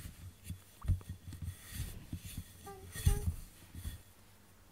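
A cat rubbing its head and fur against the camera, making irregular dull thumps and scraping rubs on the microphone, loudest about a second in and again about three seconds in.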